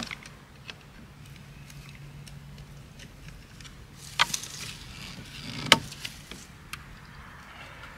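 Clicks and knocks of PVC pipe and a rubber pipe coupling being worked loose by hand with a screwdriver, with two sharper knocks about four and five and a half seconds in.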